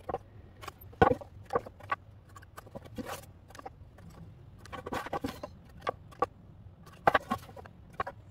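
Scattered light knocks and clicks of a small wooden block and a pine board being handled and set against each other, coming irregularly, a couple of them close together in places.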